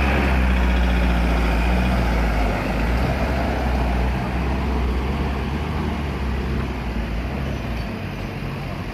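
Diesel engine of a loaded small truck driving off close by and pulling away. The engine hum is loudest at first and fades gradually as the truck moves off.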